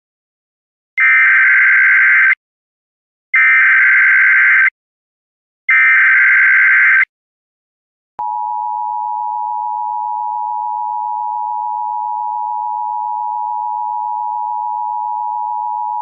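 Emergency Alert System header: three bursts of SAME data tones, each about a second long, then about eight seconds in the steady EAS two-tone attention signal (853 and 960 Hz together), held for about eight seconds.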